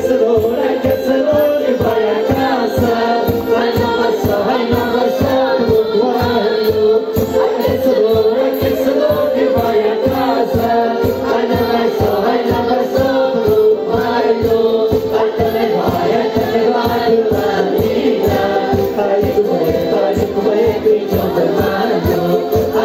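Madeiran folk music played live: a group of voices singing together over a steady drum beat.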